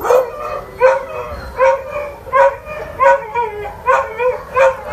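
Kennelled shelter dogs barking repeatedly, about two barks a second.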